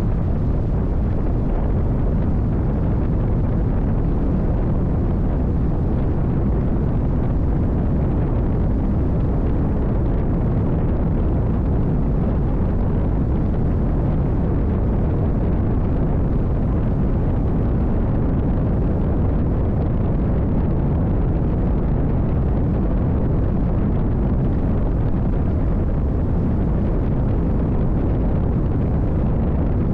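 A NITRA 22 race boat's V8 engine running steadily at speed, heard onboard as a constant deep roar mixed with wind on the microphone.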